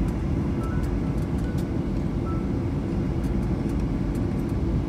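Airliner cabin noise during the landing rollout: a steady low rumble of the engines and the wheels running on the concrete runway, with light ticking rattles from the cabin.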